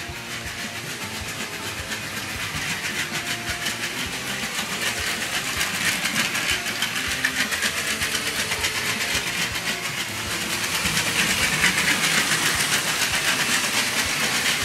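Motorized LEGO toy trains running on plastic track: a fast, dense clicking of wheels over the rails with electric motors humming. It gets louder about six seconds in and again from about eleven seconds as trains pass close.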